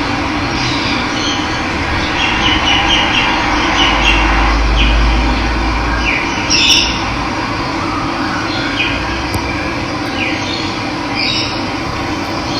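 Steady rush of running water, with birds calling over it in short chirps several times.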